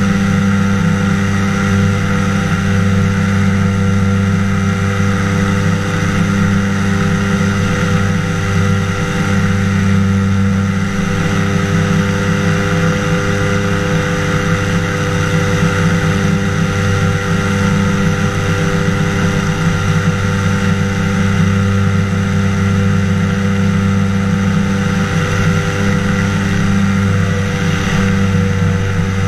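Engine of a flying inflatable boat driving its pusher propeller at steady cruise power in flight: a loud, even drone that holds the same pitch throughout.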